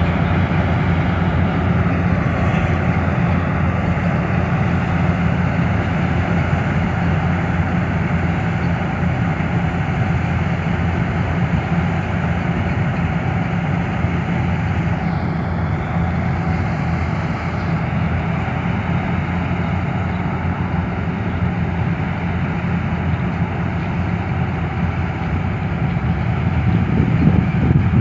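KS 9300 four-wheel-drive combine harvester running steadily while it harvests paddy: a constant low engine and machinery drone that grows a little louder near the end as the machine comes closer.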